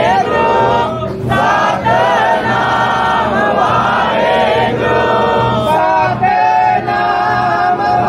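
Many men's voices chanting a Sikh hymn together in unison, a congregation singing without a break.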